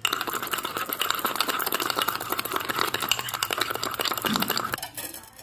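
Metal spoon rapidly beating thick coffee paste in a clay cup: a fast, continuous run of clicks and scrapes against the cup, which stops near the end.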